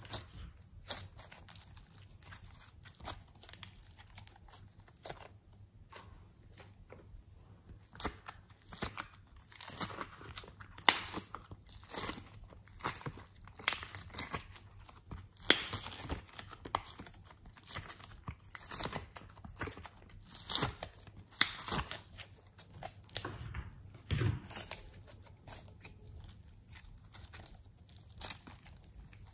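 Hands squeezing, pressing and stretching glossy slime and soft clay, making irregular sticky crackles and pops, thickest and loudest in the middle stretch.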